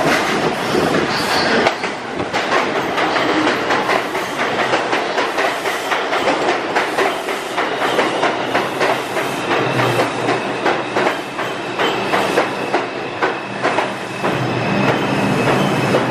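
A New York City Subway R142 train pulling into an underground station, with a steady clatter of steel wheels over the rail joints. A low hum comes in as it slows near the end.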